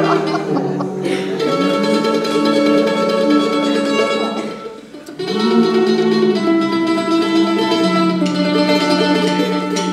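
Live band music led by electric guitar, slow and without drums: long held chords in two phrases, with a short dip about five seconds in.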